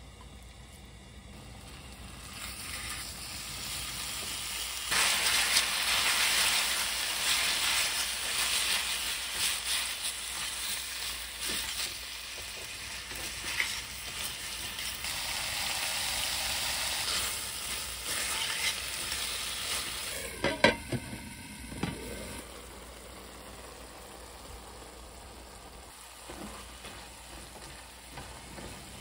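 Gochujang-marinated pork with onion and carrot sizzling in an oiled stainless steel pan as it is stir-fried. The sizzle builds over the first few seconds and is loudest through the middle, with a few sharp clicks of the utensil against the pan about two-thirds of the way in, after which the sizzle runs quieter.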